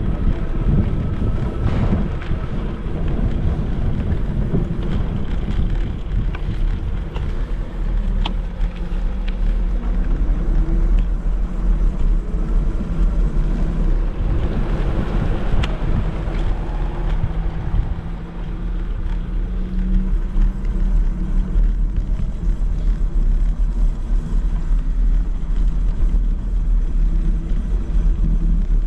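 Wind rushing over a handlebar-mounted GoPro's microphone and a heavy low rumble as a Caroma P5 electric scooter rides along. A faint hum drifts up and down in pitch now and then.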